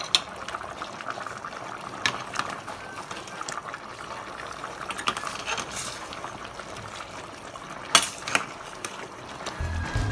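Thick tomato-sauce chicken stew simmering and bubbling in a pot while it reduces, with steady crackling bubbles and a few sharp clicks, the loudest about eight seconds in. Music comes in just before the end.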